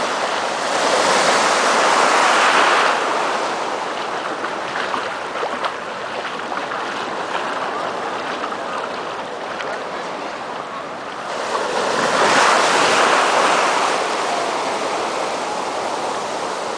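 Small ocean waves breaking and washing up a sandy beach in the shallows: a steady rush of surf that swells louder twice, about a second in and again about twelve seconds in.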